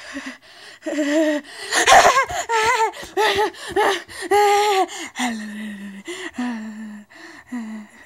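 A child's voice making wordless vocal sounds: gasps and high, wavering cries, then three short, low, level hums near the end.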